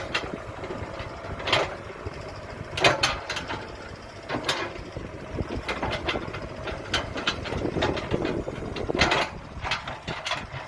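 Kobelco 07 excavator running with a steady low engine rumble, broken by repeated sharp metallic knocks and clanks at irregular intervals as the machine works.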